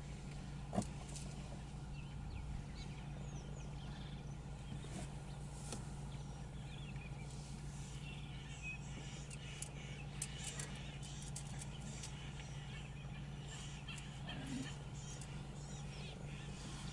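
Steady low hum, with scattered bird chirps and occasional snaps and clicks over it. One sharp knock comes about a second in.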